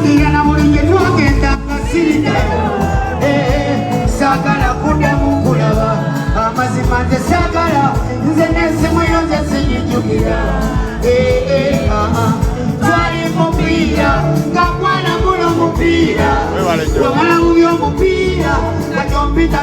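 Loud amplified music with a voice singing over a steady beat and bass, played through the PA at a sound check.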